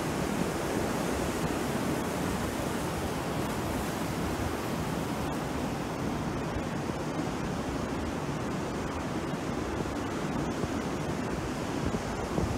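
Sea surf: small waves breaking and washing up the shore in a steady, continuous rush.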